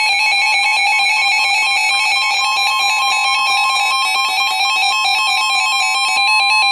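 NOAA weather alert radios, one a Reecom, sounding a warning alarm: a rapid, fast-alternating electronic beeping over a steady tone near 1 kHz, the NOAA weather radio warning alarm tone that signals a severe thunderstorm warning.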